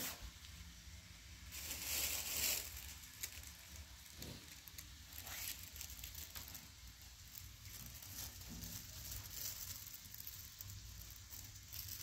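Soft rustling of a knitted wool garment being turned over and straightened in the hands, in a few short bursts, the longest about two seconds in, over a faint steady low hum.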